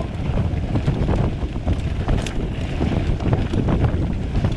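Mountain bike rolling fast downhill over loose rocky dirt: wind buffeting the mounted camera's microphone, with tyres crunching on gravel and the bike rattling over bumps in many short knocks.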